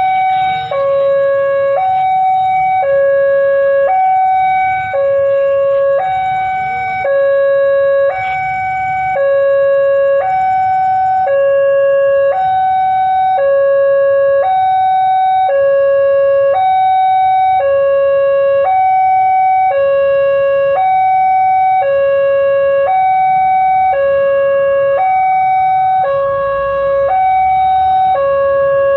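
Railway level-crossing warning siren sounding a loud two-tone hi-lo alarm, the higher and lower tones alternating about once a second without a break, very loud and noisy.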